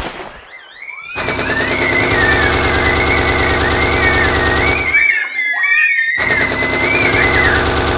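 Sustained rapid automatic gunfire, a machine-gun sound effect, with high wavering screams over it. It breaks off for about a second past the middle, then starts again.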